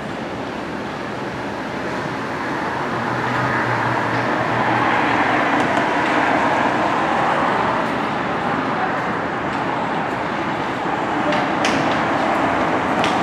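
Train rolling along the track: a steady rumble that grows louder about a third of the way in, with a few sharp clicks near the end.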